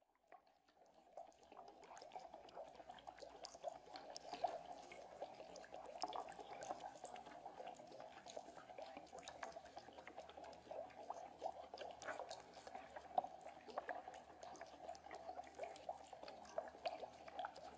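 Underwater ambience heard through a submerged camera microphone: a steady mid-pitched rush with a constant scatter of sharp crackling clicks, fading in over the first second or two.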